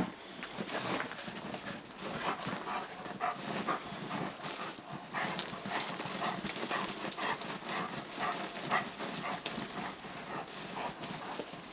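Giant Schnauzer tearing into snow: snow crunching in a quick, irregular run of short crunches.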